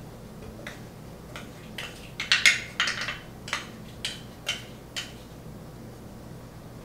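Flour being knocked out of a measuring cup into a stoneware crock: a run of light taps and scrapes of a spoon against the cup, several close together around the middle, then single taps about every half second.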